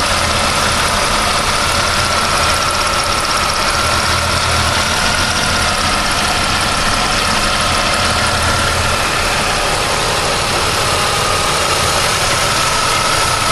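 1999 Pontiac Firebird engine idling steadily, with a steady high whine held over the low engine rumble throughout.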